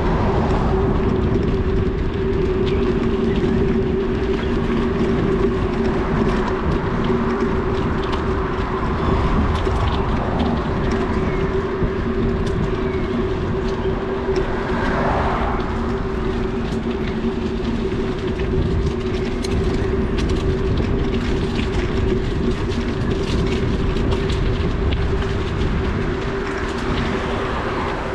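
Steady rolling noise of a bicycle ride: wind rumbling on the microphone with a constant hum from the tyres on the road, and scattered light ticks.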